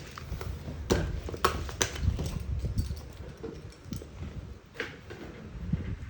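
Hands handling plastic toy pieces and packaging: low rustling and bumping with a few sharp clicks and knocks, most of them in the first two seconds and one near the end.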